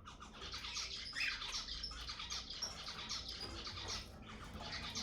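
Zebra finches calling and singing: a busy, overlapping stream of short, rapid chirping notes.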